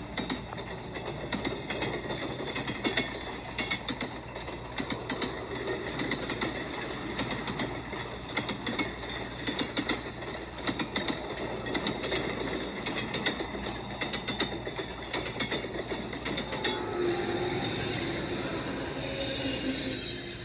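Train rolling on rails with a dense, irregular rattle and clatter from the wheels and cars. In the last few seconds a shrill, wavering metal-on-metal wheel squeal sets in and grows louder.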